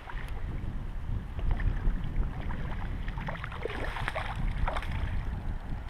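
A hooked trout thrashing and splashing at the surface close by, with a cluster of splashes about three to five seconds in, over a steady low rumble of wind and moving water.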